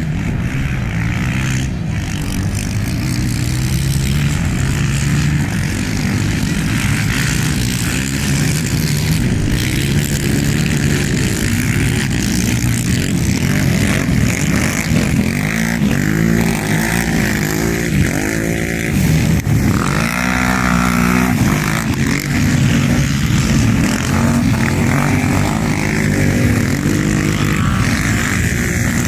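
Quad bike (ATV) engines running hard, their pitch rising and falling repeatedly as they rev up and ease off.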